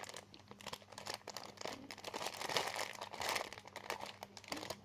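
Plastic crinkling and rustling in irregular crackles as a squishy toy and its plastic packaging are handled.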